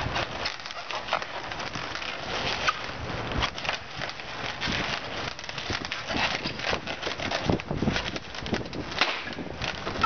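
Latex modelling balloons rubbing and squeaking against each other and the hands as they are twisted together, a continuous run of short crackles with the odd brief squeak.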